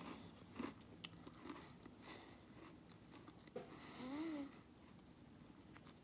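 Quiet sounds of a person eating fast food: scattered clicks and soft crunches of biting and chewing. About four seconds in there is a short pitched sound that rises and then falls.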